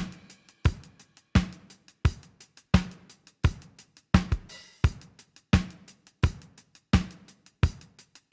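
Drum-kit recording playing a steady beat, a loud hit about every 0.7 s with a few softer ghost notes between, heard through the Amek 9099 console-emulation plugin.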